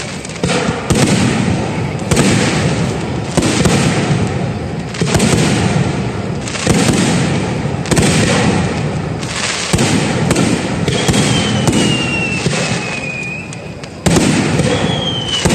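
Aerial fireworks shells bursting in a rapid barrage, a sudden boom every second or two, each trailing off in crackle. Twice in the second half a high whistling tone glides slowly downward over the bursts.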